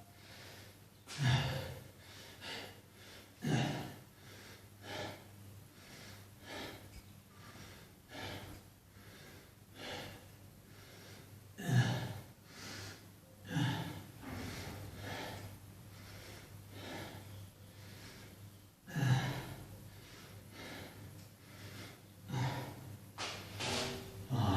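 A person breathing hard, with short forceful exhales and gasps every second or two and a longer pause in the middle: the breathing of exertion during a weight-training set.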